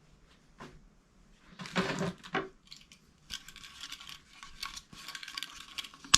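Light clatter and clicking of small hard objects being handled: a knock, a few knocks about two seconds in, then a quick run of rattling clicks.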